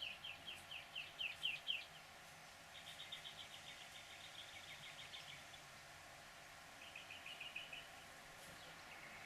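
A small songbird calling in three quick runs of chirps: a series of about five notes a second at the start, a faster run of about eight notes a second in the middle, and a shorter run near the end.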